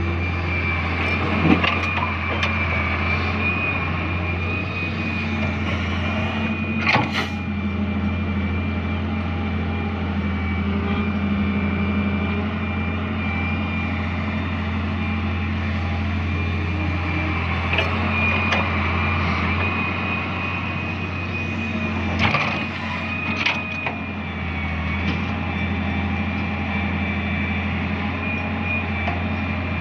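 Excavator's diesel engine running steadily under a constant high whine, with a few sharp knocks scattered through, about five in all.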